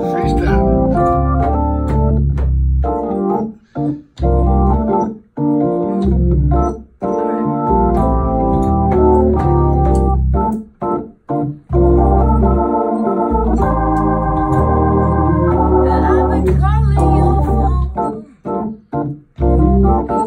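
Hammond organ playing full, sustained chords over a deep bass line in a slow R&B groove. The chords stop and start, with short breaks between phrases.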